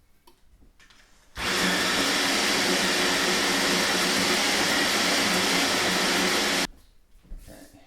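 A home coffee appliance's electric motor or pump running steadily with a low hum for about five seconds, starting and stopping abruptly.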